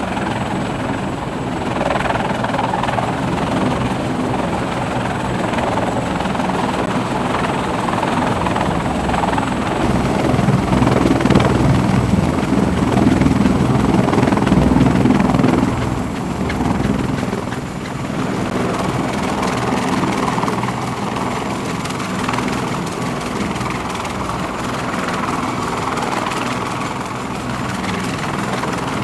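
Sikorsky CH-53E Super Stallion, a three-engine heavy-lift helicopter, hovering and landing with its rotors and turbines running loud and steady. The noise is at its loudest as it comes down, then eases slightly about sixteen seconds in as it sits on deck with the rotors still turning.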